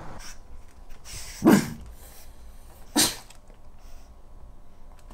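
Pug making two short, sharp sneeze-like sounds about a second and a half apart, the first louder.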